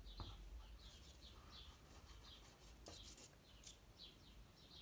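Near silence, with faint small-bird chirps repeating a couple of times a second in the background. A brief scratch of a soft pastel stick on paper comes about three seconds in.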